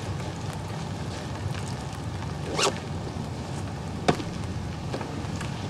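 Steady low outdoor rumble with a few brief handling rustles and a sharp click, typical of clothing and paper being handled.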